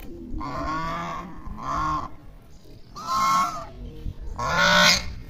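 Domestic geese honking: four harsh, nasal calls, the last two the loudest.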